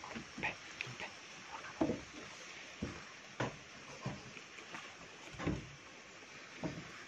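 Fairly quiet, irregular soft knocks and thumps, about one a second, the sharpest a little under two seconds in and about three and a half seconds in.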